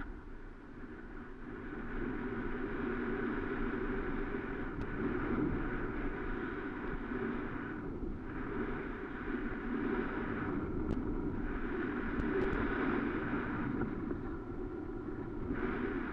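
Steady rush of wind on the microphone and the scrape of sliding over packed snow during a downhill run. It builds up about a second and a half in and dips briefly twice around the middle.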